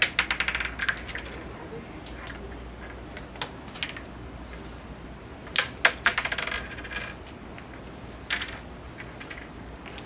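Wooden crokinole discs clacking against each other and the board, in several bursts of sharp clicks. The loudest bursts, just after the start and around the middle, trail off into quick rattling runs of ticks.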